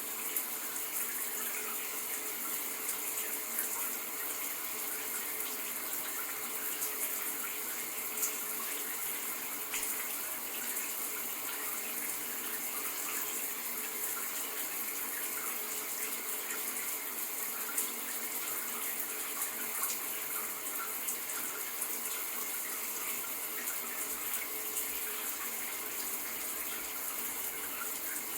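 Shower running steadily: a constant spray hiss of water, with many small sharp ticks of drops striking.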